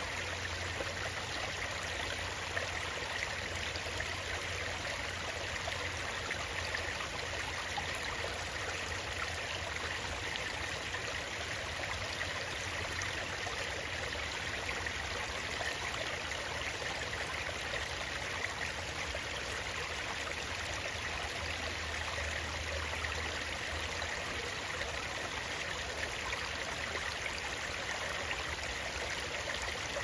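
Shallow stream water running over and between rocks, a steady rush of flowing water.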